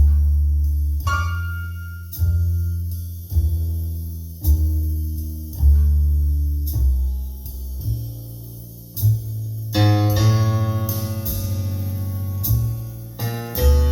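A jazz piano trio recording played back over Definitive Technology Mythos ST loudspeakers. A bass plays slow, deep notes about once a second under light cymbal taps, and about ten seconds in the piano comes in with fuller chords.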